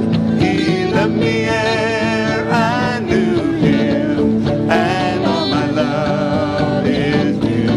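A live church worship band playing a country-style song, with women singing lead over guitars, keyboard and drums.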